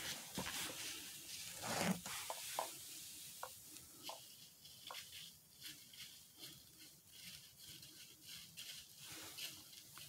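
Faint, irregular rustling and small crackles of dry fallen leaves as a white-tailed deer moves through the leaf litter. The rustling is a little louder in the first couple of seconds.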